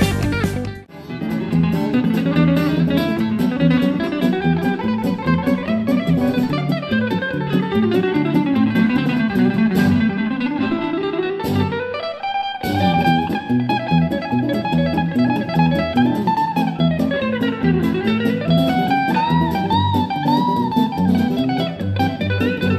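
Country instrumental on a Telecaster-style electric guitar, hybrid-picked in chicken-picking style, over an acoustic guitar accompaniment. It starts after a short break about a second in and plays fast runs that sweep up and down the neck.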